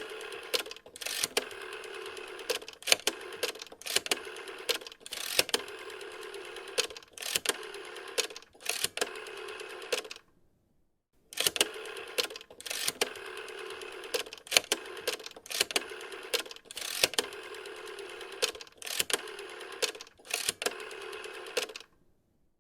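Rotary telephone dial being turned and let go digit after digit: sharp clicks and stretches of whirring as the dial runs back. The dialing pauses for about a second near the middle, then goes on.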